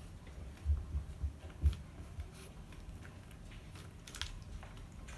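Cats chewing cat food, with scattered small clicks and a few low thumps about a second in.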